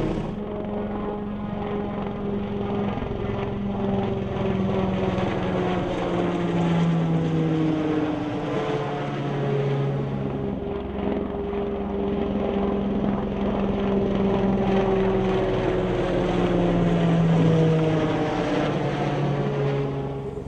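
Piasecki X-49A compound helicopter flying past at speed: its main rotor and ducted pusher propeller drone with several steady tones that slowly fall in pitch as it goes by. The fall happens again on later passes.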